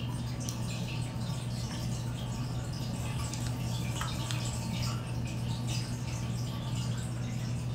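Room tone: a steady low hum with faint scattered clicks and ticks, and no speech.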